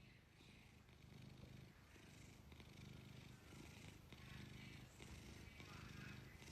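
Cat purring faintly, in a steady rhythm that swells and eases about once a second with its breathing.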